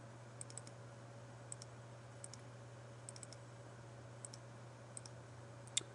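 Faint computer mouse clicks, about a dozen at irregular spacing, some in quick pairs and triplets, as keys are clicked on an on-screen graphing calculator emulator; a slightly louder click comes near the end. A steady low hum runs underneath.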